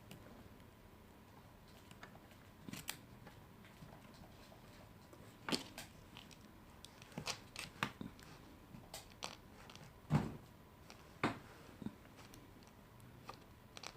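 Small, sharp clicks and taps as the iPhone 6S display's flex-cable connectors are pressed onto their sockets on the logic board and handled with small tools. About a dozen come at irregular intervals, the loudest about two-thirds of the way through.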